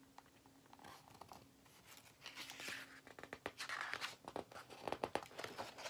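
Pages of a picture book being turned and handled: faint paper rustling and crinkling with small clicks, starting about two seconds in.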